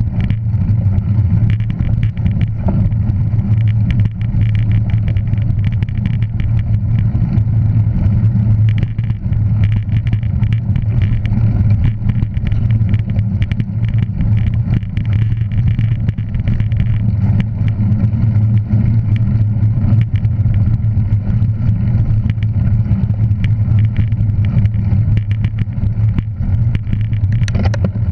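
A motor vehicle running steadily: a continuous low engine drone that holds the same pitch and level throughout.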